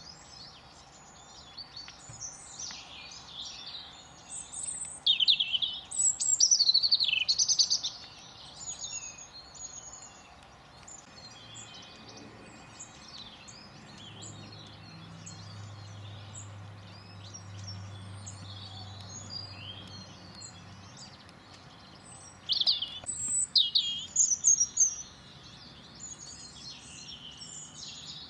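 Garden birds chirping and calling throughout, high-pitched, with two spells of loud, close calls: one about five to seven seconds in and another a few seconds before the end.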